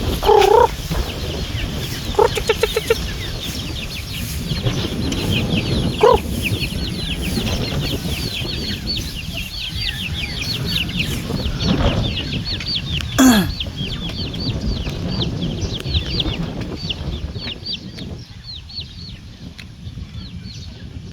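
Chickens clucking: a few louder clucks, including a quick run of clucks about two seconds in, over a steady stream of short high peeps, several a second, that thin out near the end.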